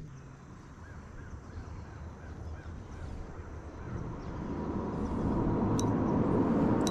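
Spinning reel being cranked: a low whir that grows louder from about four seconds in, with a faint steady whine in it. Faint bird calls are heard a little earlier.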